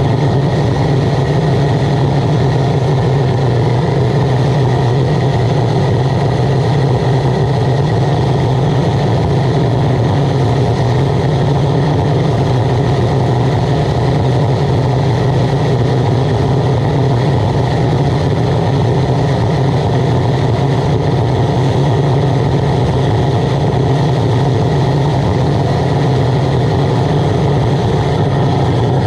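Waste oil burner running steadily: its blower fan and oil flame make an even, unbroken noise with a strong low hum.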